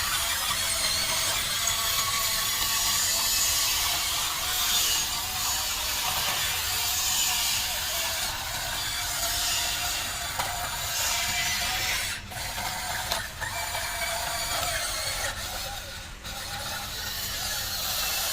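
Small electric motors and plastic gearboxes of a radio-controlled construction model whirring and grinding without a break, dropping out briefly a few times after about twelve seconds.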